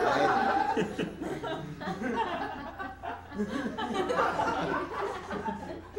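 Studio audience laughing at a punchline, loudest at first and then easing off.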